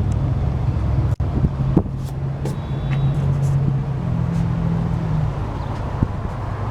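A motor vehicle engine running with a steady low hum, heard over general traffic-like outdoor noise. There is a very brief drop-out a little over a second in.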